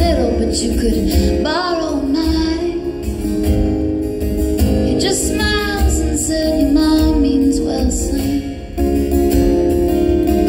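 A woman singing live to her own acoustic guitar strumming, her voice gliding and sliding between notes. Near the end the voice drops out after a brief dip and the guitar plays on alone.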